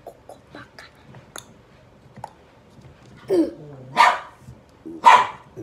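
A dog barking: three loud, sharp barks about a second apart, starting a little over three seconds in. Before them come faint clicks of the plastic toy container being handled.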